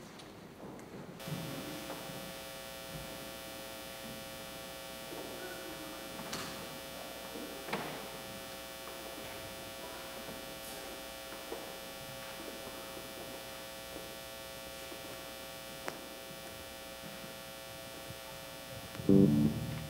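Steady electrical mains hum, a buzzy stack of even tones, that switches on abruptly about a second in. Faint scattered knocks lie under it, and a loud low sound in broken pulses comes in near the end.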